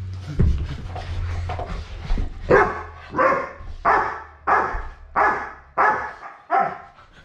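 Large dog barking in play, a regular run of about seven barks, roughly one every 0.7 seconds, starting a couple of seconds in.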